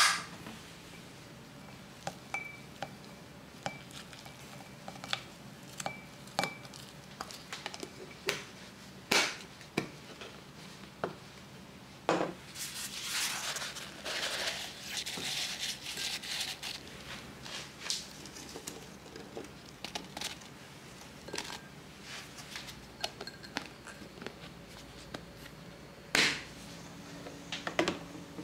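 Kitchen storage containers and their lids being handled and set down, a scatter of sharp clicks and knocks, with a few seconds of plastic crinkling and rustling near the middle.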